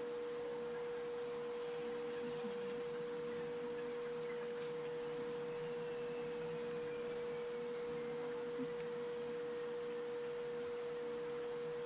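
A steady, unchanging pure tone a little under 500 Hz, like an electrical whine, over faint background hiss.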